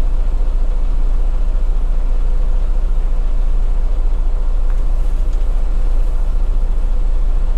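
Semi-truck's diesel engine idling steadily, heard from inside the cab as a loud, deep rumble with a fast, even pulse.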